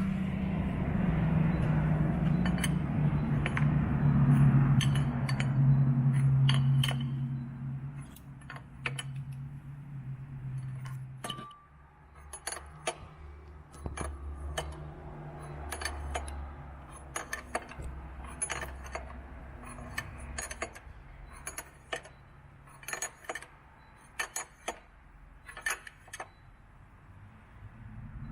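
Metal tools clinking and tapping against metal, many sharp irregular clinks, while a crankshaft oil seal is being replaced. A steady low hum, the loudest sound, runs under the first part and stops about eleven seconds in.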